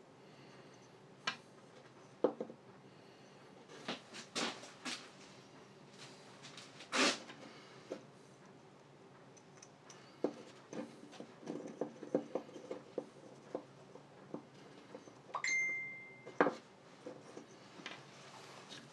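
Small wooden and metal parts being handled on a workbench: scattered light clicks, taps and knocks. A short steady high tone sounds about two-thirds of the way through.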